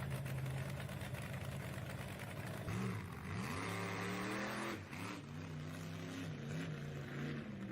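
Car engine running steadily, then revving up and back down several times.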